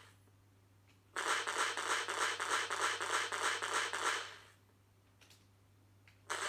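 Electronic gun/laser sound effects from a prop sword's small built-in speaker: a rapid burst of about ten shots lasting about three seconds, the held-fire-button burst mode, then a single shot near the end.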